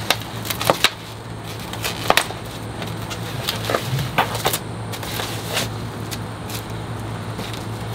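White foam and plastic packing wrap being handled and pulled off a new e-bike: irregular crinkles and sharp clicks, over a steady low hum.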